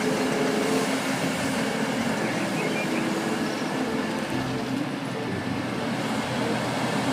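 A toy crane's small plastic wheels rolling steadily along a hard surface, giving an even rumbling noise.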